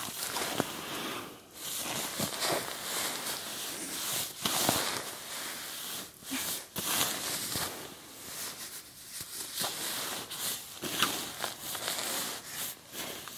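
Nylon shell of a Marmot CWM down sleeping bag rustling and crinkling as it is crammed by hand into a stuff sack, in irregular surges with scattered sharp crackles.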